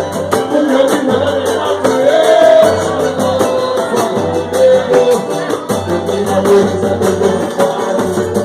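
A samba group plays with a singer carrying the melody over a steady percussion beat.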